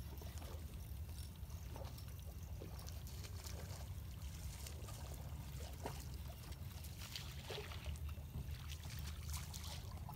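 Scattered light clicks and small splashes over a steady low rumble while a fishing reel is cranked to bring in a hooked small catfish.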